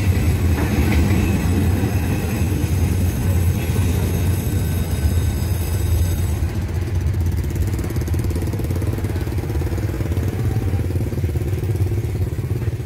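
Vehicle engines running in a steady low rumble. A faint high ringing fades out about halfway through.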